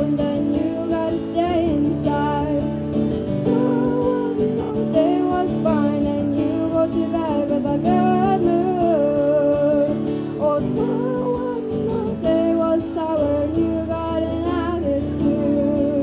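Music: a woman singing over acoustic guitar.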